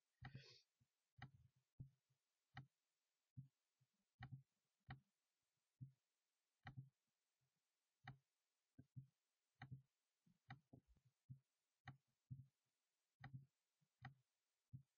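Faint computer mouse button clicks, short and irregularly spaced, about one or two a second, as on-screen form controls are selected and dragged into place.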